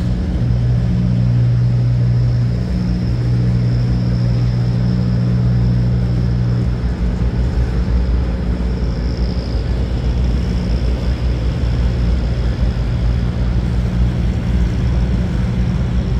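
Slow-moving freight train rolling past, refrigerated boxcars going by on the rails, with a steady low hum that weakens about seven seconds in.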